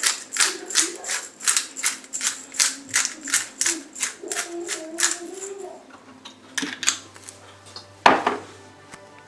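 Hand-twisted pepper mill grinding pepper: a quick, even run of ratcheting clicks, about three a second, that stops about six seconds in. A single loud knock comes near the end.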